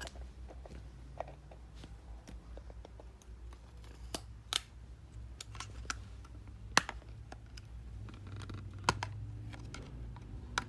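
Packaging being worked open by hand: scattered small clicks and scrapes, with a few sharper snaps about four and a half, seven and nine seconds in, over a low steady hum.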